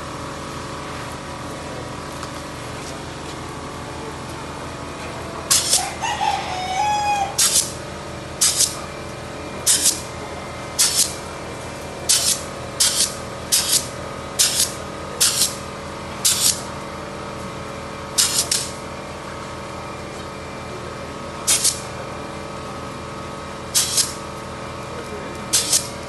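Caged laying hens giving short, harsh squawks over a steady low hum. The squawks start about five seconds in and repeat irregularly, about twenty of them.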